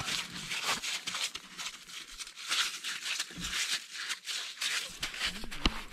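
Irregular crunching and scraping on snow-covered ice as a freshly landed small trout flops about on the end of the line.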